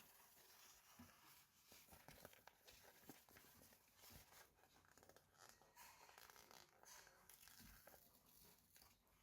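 Quiet rustling and tearing of toy packaging being opened by hand, with many small clicks and crinkles.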